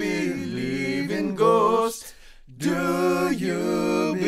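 Credits music of unaccompanied, a cappella-style male singing: sustained, gliding sung phrases, with a short break about two seconds in.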